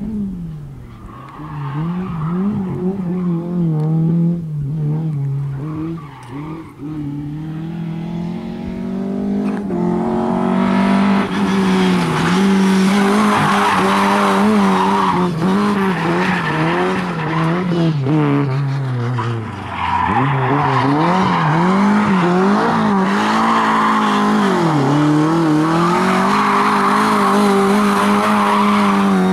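Lada 2107 rally car engine revving hard, its pitch rising and falling. From about ten seconds in, it is held at high revs while the tyres screech as the car slides sideways in a drift, with two brief dips in revs.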